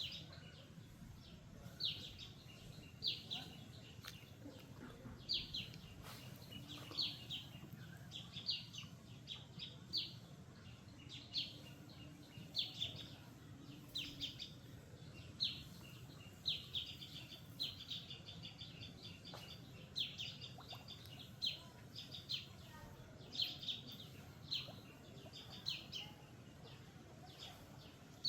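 A bird chirping over and over: short, high chirps about once a second, over faint steady low background noise.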